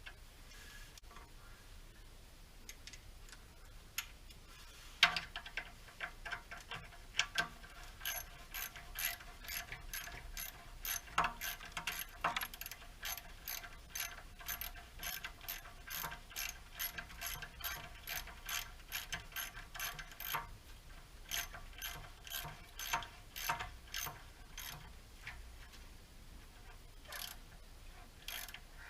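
Ratchet wrench clicking in repeated runs of a few clicks a second as bolts are tightened. It starts about five seconds in, slows, and gives two last clicks near the end.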